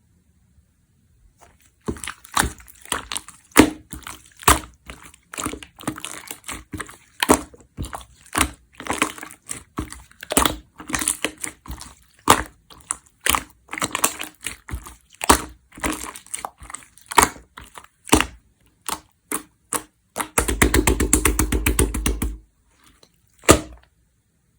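Clear slime being squeezed and stretched by hand, making irregular sharp pops and clicks as air pockets burst. About twenty seconds in there is a rapid crackling run for about two seconds, then one last pop.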